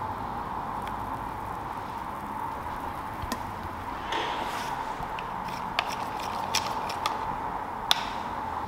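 Liquid soap concentrate poured into a plastic measuring cup of water, then stirred with a thin rod, with a few sharp clicks of the rod against the cup in the second half, over a steady background hum.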